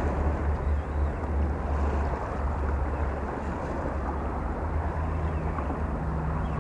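Wind buffeting the microphone, a steady low rumble over the wash of small waves on open water.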